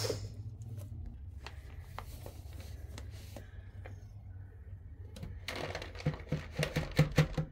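Light scattered clicks, then about five and a half seconds in a dense run of crinkling and rattling from a packet of cat treats being handled.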